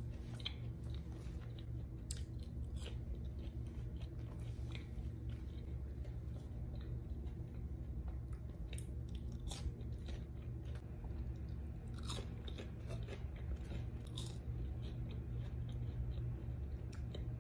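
Chewing thin Popeyes Cajun fries: light, scattered crunches from a thin crisp outer layer that is soft inside, over a steady low hum.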